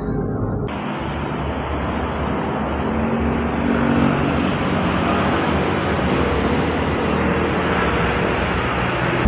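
Steady road and traffic noise heard from inside a bus, with engines passing on the street outside.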